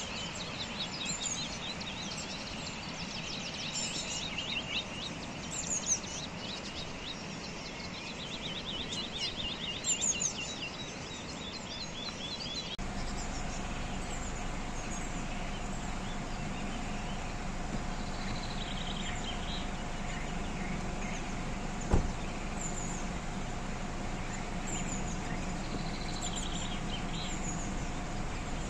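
Birds singing with chirps and a quick trilling call. About halfway through, a steady engine hum comes in under the birdsong: the Isuzu D-Max pickup's diesel engine idling. A single sharp thump follows a few seconds later.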